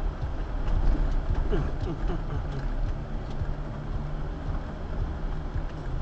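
Off-road vehicle driving slowly over a dirt trail, heard from inside: a steady low engine and tyre rumble with scattered clicks and rattles as it rolls over the rough ground.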